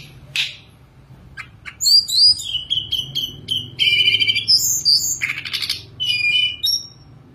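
A caged tledekan gunung songbird singing: a few short clicking chips, then from about two seconds in a fast, varied song of clear whistled notes broken by harsh, raspy phrases, stopping shortly before the end.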